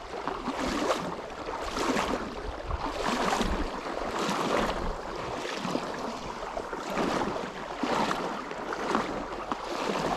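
Footsteps wading over the gravel bed of a shallow trout stream, about one step a second, each a crunch and splash over the stream's steady rush.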